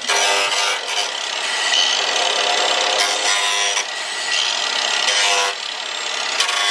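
Cordless angle grinder with a sanding disc grinding back the edge of the fuel-filler opening in a fiberglass wide-body fender: a continuous rasping grind with the motor's whine underneath, easing off briefly a couple of times as the disc moves along the edge.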